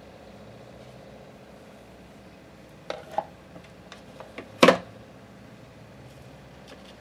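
A few light clicks and knocks, then one sharp knock, as a plastic pouring pitcher and spatula are set down on the work surface.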